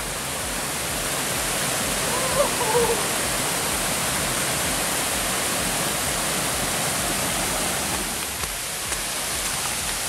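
Waterfall's steady rush of falling water, an even hiss at a constant level.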